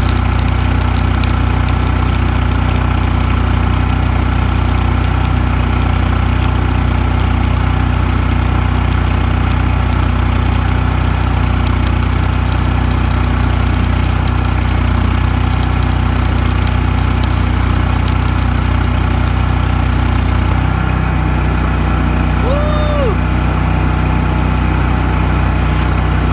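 Champion Elite engine-driven welder running steadily under load while a 7018 stick electrode burns on a vertical-up pipe weld, with a dense crackle over the engine. About 20 seconds in, the crackle stops and the engine note changes as the arc is broken. A brief high chirp follows near the end.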